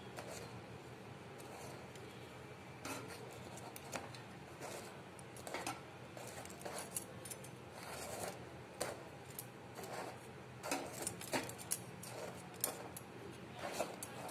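Light scrapes and clicks of a flat steel spatula against the gas burner grate and the roti as a spinach roti is turned and puffed directly over the flame. The scrapes come sparsely at first and more often in the second half.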